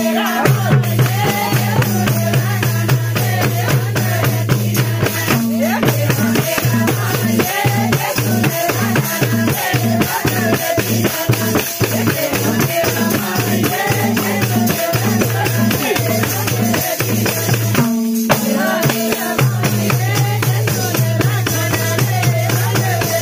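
Loud dance music with singing over a quick, steady beat of drums and rattling percussion, with a short break in the bass about 18 seconds in.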